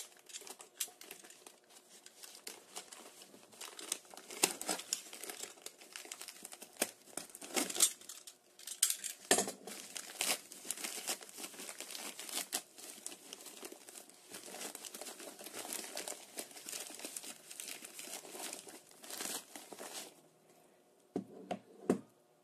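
Postal packaging being torn open and crumpled by hand: an irregular, continuous crackle of crinkling plastic and wrap. It quiets near the end, with a couple of light knocks.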